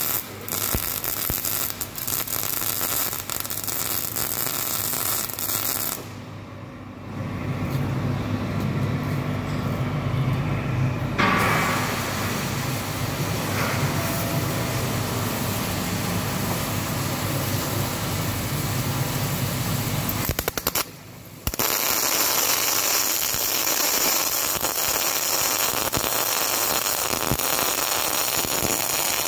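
Solid-wire MIG welding arc running, a steady crackle that breaks off briefly twice, about six seconds in and again about twenty-one seconds in.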